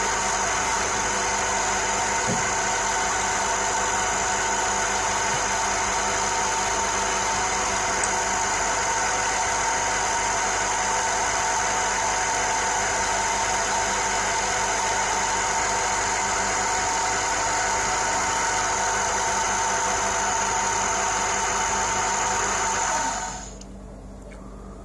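Big Chinese metal lathe running steadily while repivoting a pocket-watch balance staff, a mechanical whine of several steady tones over a low hum. It is switched off near the end, and the sound drops suddenly to a quieter hum.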